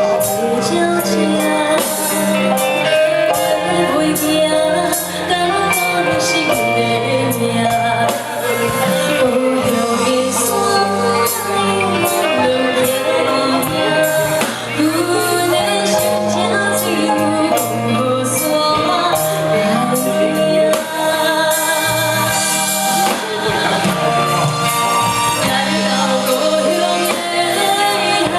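Live band music with a steady drum beat, bass and melody, with a woman singing over parts of it.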